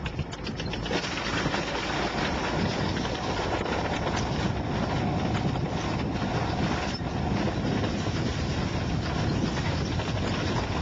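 M4 Sherman tank's engine running steadily while its steel tracks clatter as it climbs onto and rolls over a small saloon car, crushing it.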